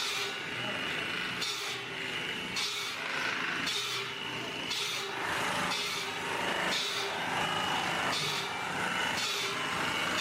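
Sawmill saw cutting through wood over running machinery, with a hissing cut that surges roughly once a second.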